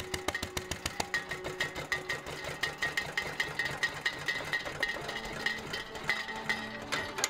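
Antique International Harvester 1½–2½ HP single-cylinder gasoline flywheel engine running steadily, with an even beat of sharp knocks at about six a second.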